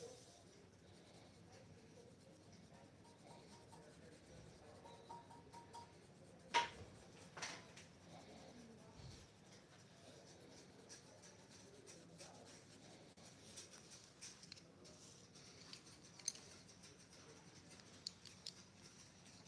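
Faint scratching of a coloured pencil shading on drawing paper, with two sharp clicks about six and seven seconds in.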